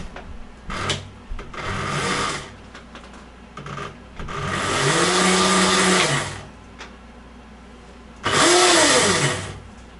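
Electric motor of an EBOX Dragster e-bike run up on the throttle in several bursts, each whine rising in pitch and then dropping as it spins down. The longest run comes about halfway through and a shorter, sharp one near the end, a first power-up test of the newly assembled bike.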